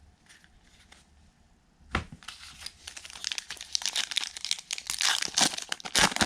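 A trading-card pack's wrapper being torn open and crinkled: a sharp rip about two seconds in, then dense crackling crinkling.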